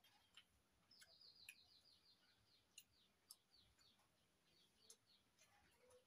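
Faint bird call: a fast run of short high chirps starting about a second in, slowing and thinning out over some three seconds. A few soft sharp clicks from eating by hand are scattered through it.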